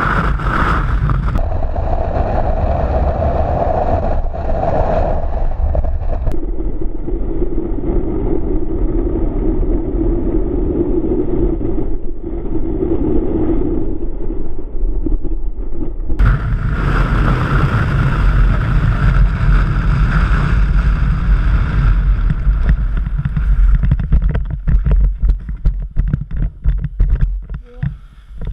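Loud wind rushing over the camera microphone during a parachute descent. The roar grows louder and fuller about halfway through as the canopy is swooped, then turns gusty and choppy and falls away near the end at the landing.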